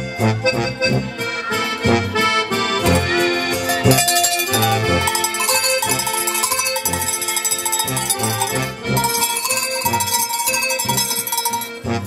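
Accordion music in a traditional oom-pah style, with low bass notes on a steady beat about twice a second, joined by a set of tuned cowbells being rung.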